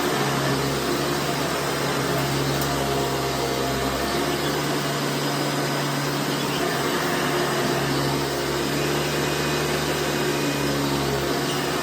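1996 Hoover Runabout Supreme upright vacuum cleaner running steadily, a constant motor hum under an even rushing airflow. The motor sounds a little dry to the owner, who reckons it needs its bearings oiled.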